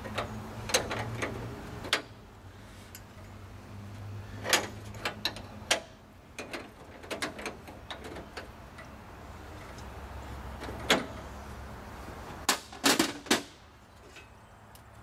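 Wrenches clinking and tapping against metal air-line fittings and the deck-plate grating of a semi truck: scattered sharp metal clicks, with a quick cluster of several clinks near the end.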